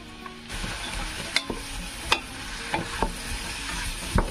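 Chopped leek, onion and pumpkin sizzling in oil in a stainless steel pot, the hiss setting in about half a second in, while a wooden spoon stirs them and knocks against the pot about five times.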